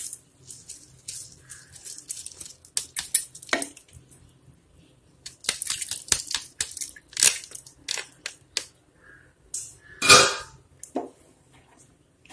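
Scattered knocks and scrapes of kitchen utensils against a large aluminium cooking pot as soaked rice is added and stirred into the broth, with one louder knock about ten seconds in.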